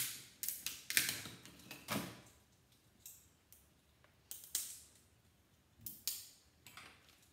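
Screwdriver prying at a small plastic switch box from a toaster's control board: sharp, irregular clicks and snaps of metal on plastic, about a dozen, the first the loudest.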